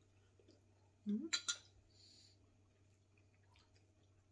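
Quiet eating at a table: about a second in, a short murmur of a voice and a few sharp clinks of a spoon against a ceramic bowl, then a brief soft hiss.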